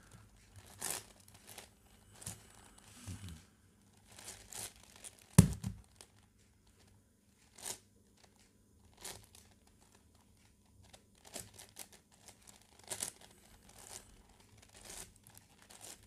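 Plastic 10x10x10 Rubik's cube being turned by hand: scattered short rasping clicks as its slices are twisted, with one sharp knock about five seconds in.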